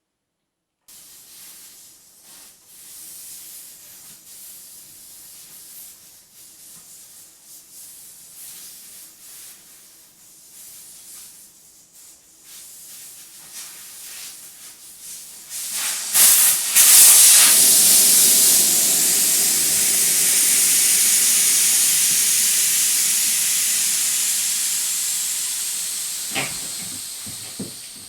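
Air hissing out of a motorcycle tyre as it is deflated: the hiss starts suddenly about halfway through, loud, then slowly fades as the tyre empties. Faint clicks of hands working at the valve come before it.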